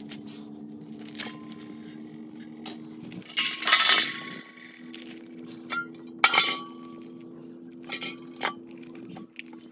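Scattered metallic clinks and knocks of stainless steel bowls, some leaving a short ringing tone, the loudest about four seconds in and again just after six seconds, while a rooster is being gutted beside them. A steady low hum runs underneath.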